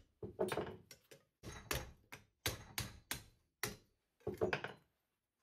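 A 2 kg rawhide mallet beating 1.6 mm stainless steel sheet to shape around a steel bar held in a vise: about a dozen knocks, two to three a second, that stop shortly before the end.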